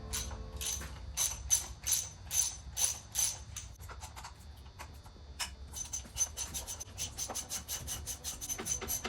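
Repeated scrubbing strokes on the dirty engine as it is cleaned, at an even pace of about two or three a second that quickens to about four or five a second about halfway through.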